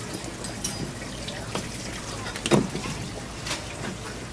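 Running tap water with scattered clicks and knocks of raw oyster shells handled on a plastic cutting board, the loudest knock a little past halfway.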